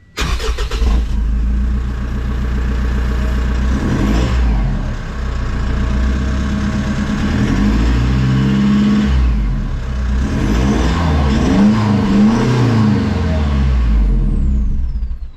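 2019 Mitsubishi Triton MR's four-cylinder turbo-diesel engine running through a newly fitted 3.5-inch DPF-back exhaust, revved up and let fall several times: once about 4 s in, again around 8 s, then a few quick blips near 11–13 s. The sound cuts off suddenly near the end.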